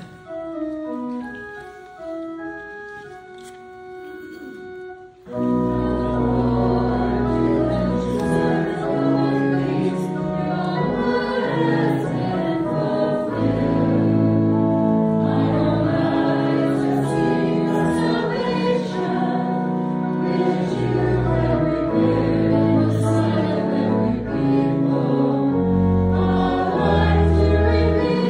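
Church organ playing a hymn: a single line of held melody notes for about five seconds, then the full organ enters with a deep pedal bass and many sustained notes.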